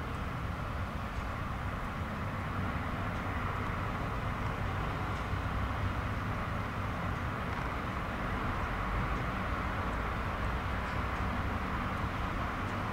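Steady dockside background noise: a low rumble with an even hiss above it, with no distinct events.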